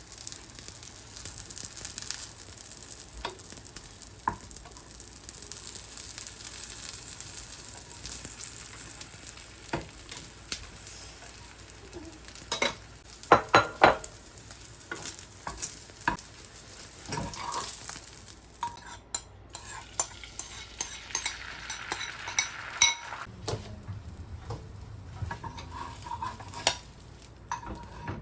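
Food frying and sizzling in a pan while it is stirred, with the utensil clicking and knocking against the pan now and then. The sizzle thins out about two-thirds of the way through, leaving scattered clicks.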